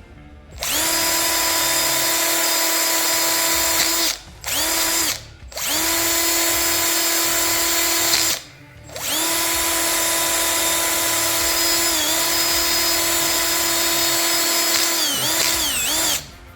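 Small power tool fitted with a wire wheel, running at a steady high whine while scuffing rust off steel body shims. It runs in four spells with short pauses in between, and the pitch wavers and drops briefly just before it stops near the end.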